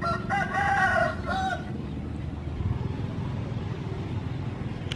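A rooster crows once, starting about a third of a second in and lasting just over a second, with a short final note. A steady low rumble runs underneath.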